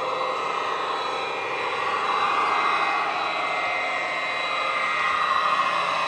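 Recorded Class 68 diesel engine sound from an ESU LokSound decoder, played through the model locomotive's small ESU passive radiator speaker. The engine runs steadily as the model drives, with little deep bass and a slight rise in loudness about two seconds in.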